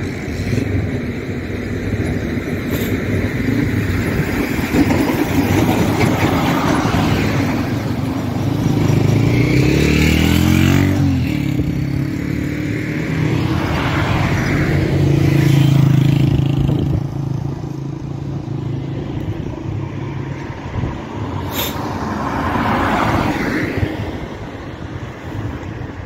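Road traffic passing: several vehicles go by one after another, their engine and tyre noise swelling and fading. About ten seconds in, one engine revs up with a rising pitch. A small hatchback car drives past about halfway through.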